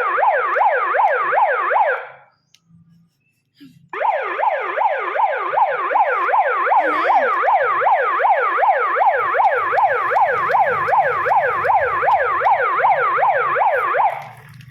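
Small electronic toy siren (a 'liu-liu') sounding a fast yelp, its pitch sweeping down and back up several times a second. It cuts off about two seconds in, stays silent for a moment, then sounds again for about ten seconds.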